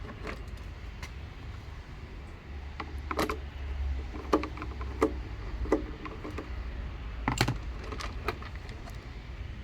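Plastic clicks and knocks as the air fryer's bottom housing is pried apart and handled, a scattered run of sharp taps with the loudest click about seven seconds in.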